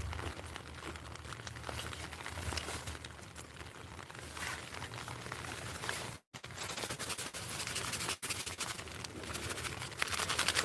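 Crinkling and rustling of HotHands hand warmer pouches and their torn plastic wrappers being handled, with irregular crackles; the clicking grows denser and quicker near the end.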